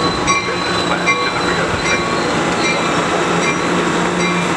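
Amtrak Pacific Surfliner bi-level passenger cars rolling past at close range, with a steady rumble and low hum. Over it, a ringing ding repeats at an even pace, a little more than once a second.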